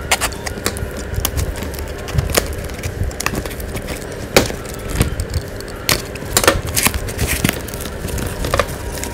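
A cardboard-wrapped package being handled and cut open with a utility knife: irregular sharp clicks, taps and scraping of cardboard and packing tape.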